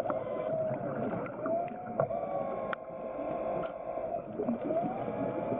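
BlueROV's electric thrusters whining, the pitch sliding up and down as the motors speed up and slow down, with a few sharp clicks.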